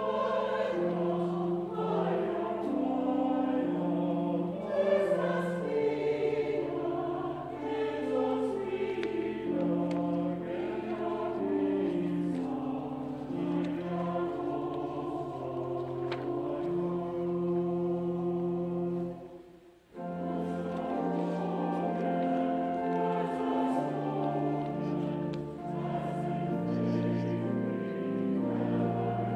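Church choir singing with held chords, with a brief pause about two-thirds of the way through before the singing resumes.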